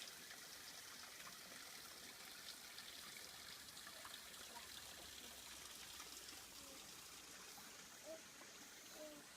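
Faint, steady rushing of a mountain valley stream flowing over rocks.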